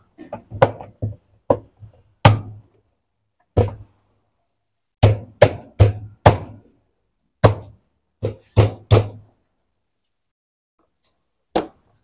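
The plastic tub cover of a Brastemp 11 kg top-load washing machine being knocked down by hand to seat it on the tub. About fifteen sharp knocks come at uneven spacing in short runs, then a pause and a single knock near the end.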